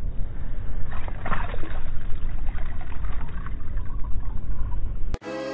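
Water splashing and trickling in an ice-fishing hole as a bass is released by hand and swims off, over a steady low rumble. Music cuts in right at the end.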